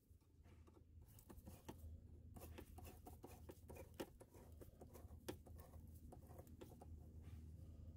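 Faint, irregular clicking and scraping of a flathead screwdriver tightening the hose clamps on an engine's intake tube, over a low steady hum.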